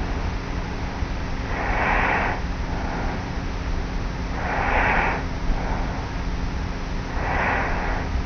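A young woman asleep on her back, snoring lightly, with close-up breaths from a tape recorder on her pillow. Three soft, regular snores come about 2.5–3 seconds apart over the tape recording's steady hiss and hum.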